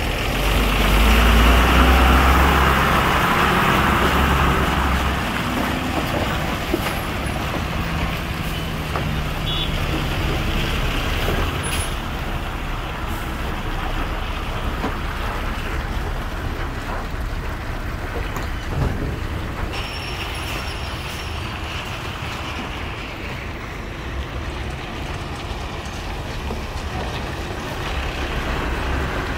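Heavy truck running on the road, its low engine drone loudest in the first few seconds under a loud rushing hiss, then a steadier engine and road noise.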